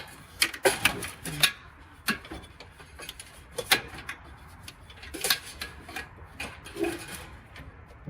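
Irregular clicks and short scrapes of wires and connectors being handled and fitted onto terminals inside an electric dryer.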